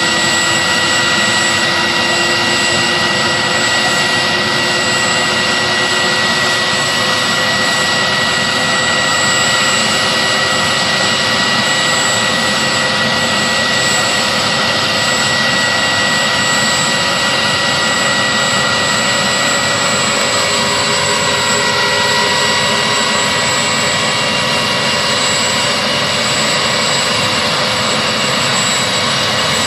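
Large fire-fighting helicopter's turbine engines and rotor running steadily, with a constant high turbine whine over the rotor and engine noise; a few of the tones shift in pitch about twenty seconds in.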